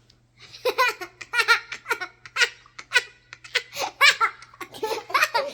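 A child laughing hard: a long run of high-pitched peals of laughter, starting about half a second in.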